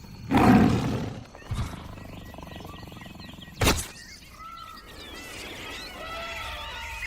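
An animal's roar, loudest in the first second, over a wild outdoor ambience; a sharp click comes about three and a half seconds in, followed by warbling bird calls.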